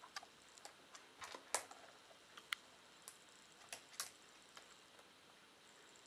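Sparse, irregular light clicks and taps from a Shiba Inu moving about close by, over a quiet room.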